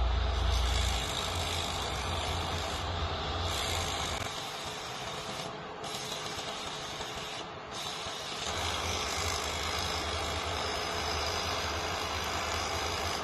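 Engine and machinery of a wheeled integrated girder transporter-launcher running as it drives forward feeding a high-speed-rail box girder out over the span: a steady mechanical hiss under a low rumble that drops away about four seconds in and comes back after about eight.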